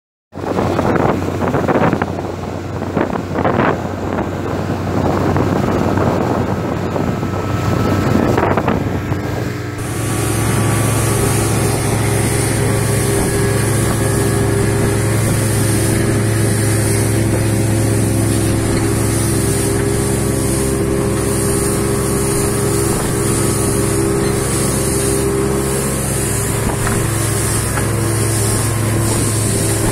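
Motorboat running at speed. For the first ten seconds wind gusts buffet the microphone over water noise, then the sound changes abruptly to a steady boat-engine drone with water rushing past the hull.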